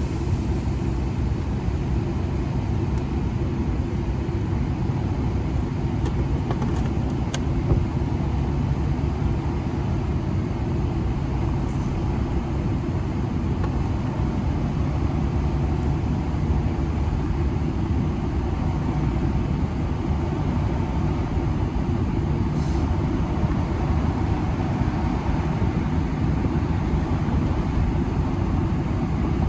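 Car driving at steady speed, heard from inside the cabin: a continuous low engine and tyre rumble on the road.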